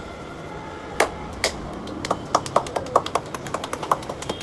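Hands slapping and patting a bald scalp in a barber's head massage: two sharp slaps about a second in, then a quick run of lighter pats, about five a second.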